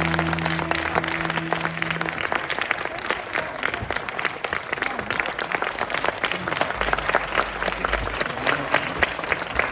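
Audience applauding, a dense patter of many hands clapping. A held low note from the stage's music fades out about two seconds in.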